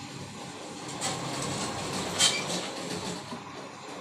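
Steady rumble of a passing vehicle, with one short sharp sound a little past two seconds in.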